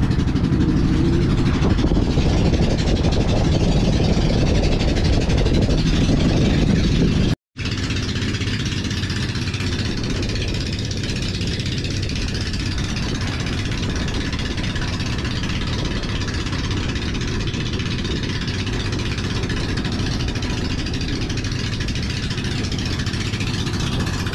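Outrigger boat's engine running steadily under way, mixed with rushing wind and water. The sound drops out for an instant about seven seconds in, then carries on slightly quieter.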